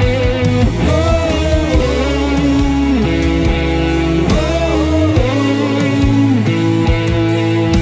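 Instrumental break of a gospel sertanejo song: a lead guitar plays a melody with notes bending up and down in pitch, over bass guitar and a steady drum beat.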